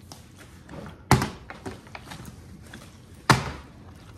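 Plastic water bottle being flipped and landing on a kitchen countertop: two sharp thuds about two seconds apart, with a few fainter taps between.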